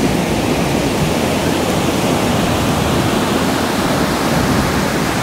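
Ocean surf breaking and washing up the shore, a steady rushing noise.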